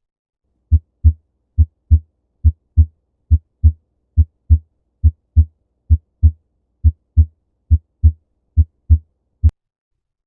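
Heart sounds heard through a stethoscope at the aortic valve area, a steady lub-dub of paired low thumps at about 70 beats a minute, where the second heart sound is expected to be accented. A brief sharp click comes near the end.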